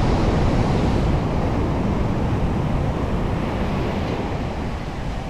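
Ocean surf on the beach, a broad steady rush that swells early and slowly eases off, with wind buffeting the microphone.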